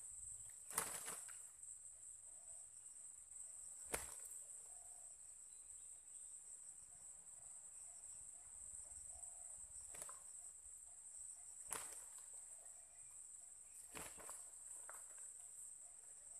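Insects shrilling in one steady, high-pitched tone, faint overall, with a few sharp clicks scattered through.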